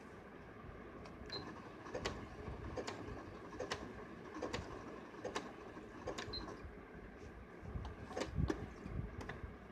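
Electric sewing machine with a zig-zag foot running slowly as it stitches a rolled saree edge. A faint steady hum runs under it, with a sharp click from the needle about once every second.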